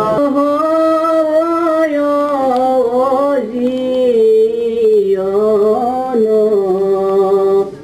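Devotional chanting, sung in long held notes with the pitch sliding slowly from one to the next, breaking off briefly near the end.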